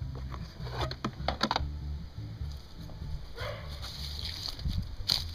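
Plastic cowl cover from a Mercedes W202 windshield being handled: a few sharp knocks and clicks about a second in, then rustling as it is put down on dry leaves, over a steady low rumble.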